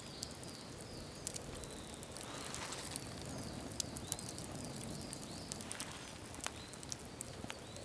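Wood campfire crackling, with irregular sharp pops and snaps. Faint high bird calls repeat in the background.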